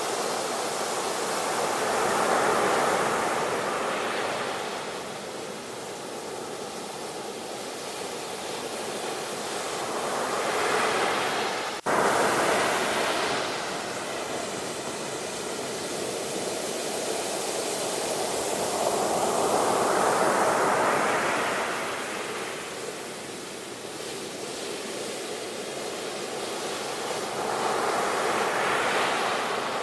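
Sea waves breaking and washing up a shore, the surf swelling and fading in slow surges about every nine seconds. About a third of the way in, the sound cuts out for an instant and comes back at full level.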